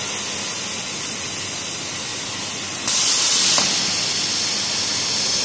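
CNC plasma torch cutting steel plate: a steady hiss from the plasma arc and its gas jet, with a louder, higher hiss for under a second about three seconds in.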